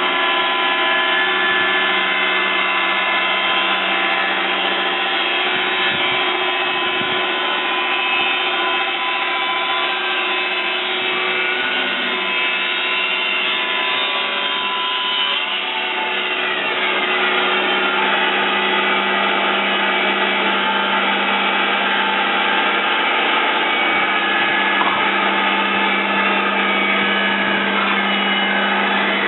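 Horizontal log band sawmill running, its band blade sawing through a log with a steady whine. About halfway through the tone shifts, with a short falling whine.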